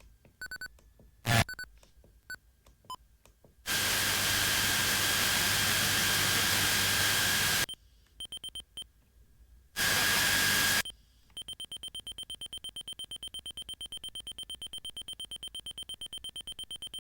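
AIWA HS-JX849 Walkman's radio between stations: short electronic beeps, then two bursts of static hiss, the first about four seconds long. For the last third there is a fast, steady pulsing high tone.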